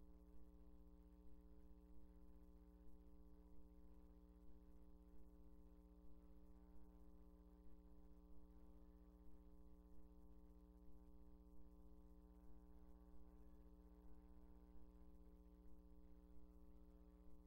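Near silence: a steady low electrical hum with its overtones, and a faint pulse about every three-quarters of a second.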